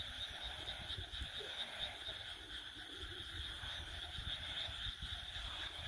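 A chorus of frogs calling steadily, many overlapping croaks merging into a continuous trill, over a low rumble on the microphone.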